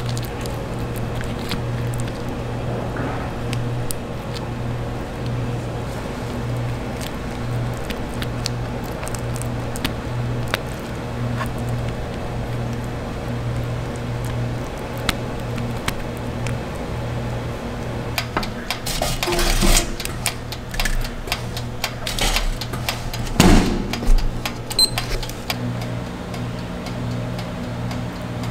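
Steady low hum of cafe machinery under soft background music, with light taps and scrapes of food-prep utensils on a tray. About two-thirds of the way in comes a louder clatter, and another a few seconds later.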